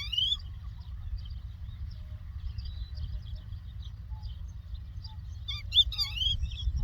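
Lark song: loud, quick twittering phrases of rising and falling whistles at the start and again near the end, with fainter chirping in between and a steady low rumble underneath.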